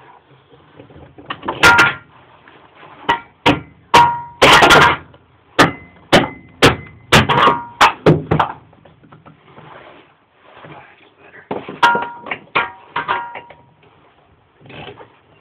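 Irregular sharp metallic clanks and knocks of metal tools and parts being handled on a small mower engine, some ringing briefly; they come in a busy run over the first half and a shorter cluster about twelve seconds in.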